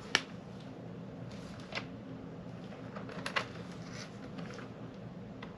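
Faint handling noise: about three light clicks spread over several seconds, over a low steady background hum.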